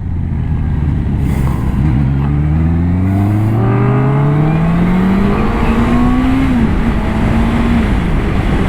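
Honda CBR650R's inline-four engine accelerating, its pitch rising steadily for several seconds, then dipping briefly and running on at a steady pitch.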